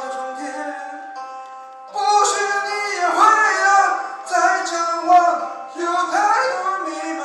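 A song with singing over a backing track, quieter at first and getting louder about two seconds in.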